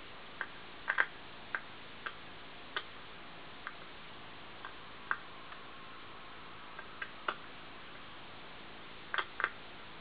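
Scattered small sharp clicks and taps at irregular spacing from fingers handling the parts of an opened hard disk drive, over a steady faint hiss. The loudest come as close pairs about a second in and near the end.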